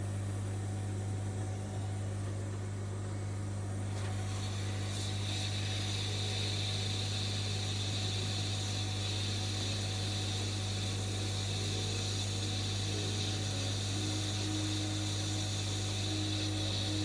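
Steady electrical hum and fan-like noise from running workbench equipment, with a hiss joining about four seconds in.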